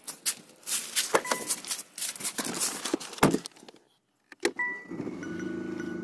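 Knocks, clicks and rustling as someone climbs into a car. About four and a half seconds in, the electronic chimes of a 2017 Mercedes-Benz E300's dashboard start as the ignition is switched on, followed by a steady pitched drone.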